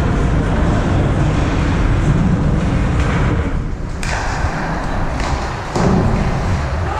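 Ice hockey game sounds: a steady low rumble with a sharp crack about four seconds in and two lighter knocks soon after, the hits of play on the ice.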